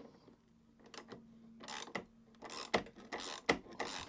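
Ratchet spanner clicking as a new shoulder bolt is wound into a lawnmower wheel's freshly re-tapped thread. It starts about a second and a half in with a run of sharp, uneven clicks, several a second.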